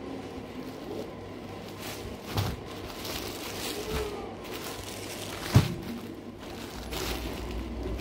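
Sarees being handled and set down on a bed: soft fabric rustling with a couple of knocks, the loudest about five and a half seconds in, over a steady low hum. A low rumble comes in near the end.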